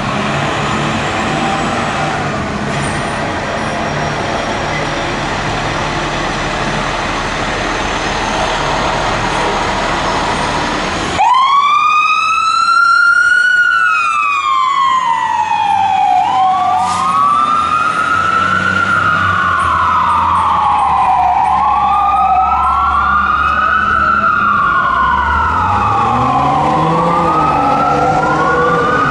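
Street traffic with a low engine rumble. About eleven seconds in, the 2007 Spartan Gladiator fire engine's siren comes on abruptly and wails, rising and falling every few seconds. The wails overlap later on, and a low rising tone joins them near the end.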